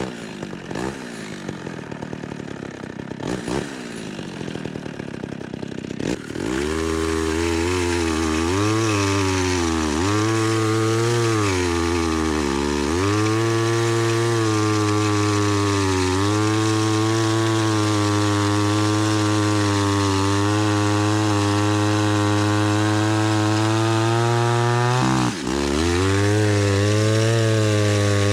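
Homelite Super XL two-stroke chainsaw, quieter for the first few seconds, then opened up to full throttle about six seconds in. Its engine pitch sags a few times as the chain bites into the wood, then runs steady under load through a long cut, with one brief drop near the end.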